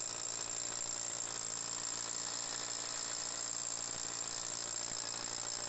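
Cordless hammer drill running steadily with a long masonry bit, boring through the house's masonry wall below ground to make a passage for the new water pipe.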